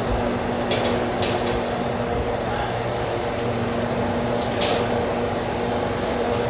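Steady machine hum, like a fan or air-conditioning unit running, with a few short light clicks: three about a second in and one near five seconds.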